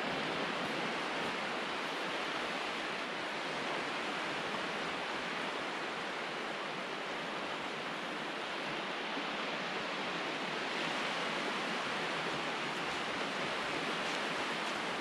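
Steady wash of small waves breaking on a flat sandy beach, an even hiss with no separate events.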